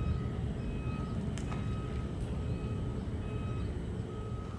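Vehicle reversing alarm beeping evenly, a single-pitched beep about once a second, over a low rumble.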